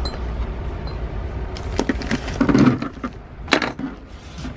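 Handling noise as a package's contents (a stack of stickers and the mailer) are sorted by hand over a workbench: rustling with a few sharp clicks and knocks, about two seconds in and again about three and a half seconds in.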